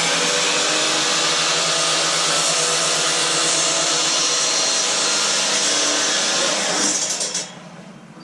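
Electric miter saw running as it cuts a board. The motor is switched off about seven seconds in and winds down.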